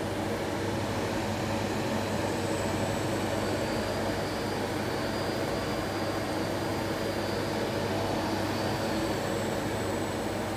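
Stainless-steel coating pan machine running: a steady mechanical hum with a low drone, with a faint high whine that comes and goes.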